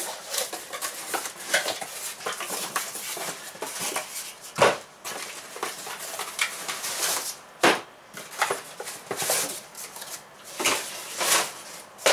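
Cardboard shipping box being unpacked: flaps and cardboard packing inserts rustle and scrape as they are pulled out and set down. Sharp knocks, about four and a half seconds in and again near eight seconds, are the loudest sounds.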